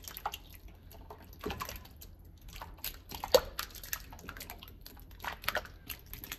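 Thick gravy with chunks of vegetables poured onto pork chops in a metal baking pan: irregular wet plops and splats with small clicks, one sharper tap about three seconds in.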